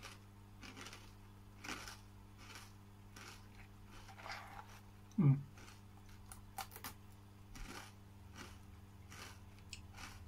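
Crunchy Calbee Jagarico potato snack sticks being bitten and chewed, a string of irregular small crunches. A brief louder sound with a falling pitch comes about five seconds in.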